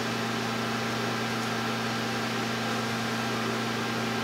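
Steady low hum with an even hiss over it and no separate clicks or knocks: the room tone of a small lab.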